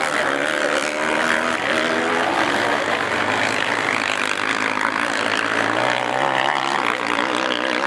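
Racing quad (ATV) engines running hard on a motocross track, the pitch rising and falling as the riders work the throttle over the first couple of seconds, then blending into a steady wash of engine noise.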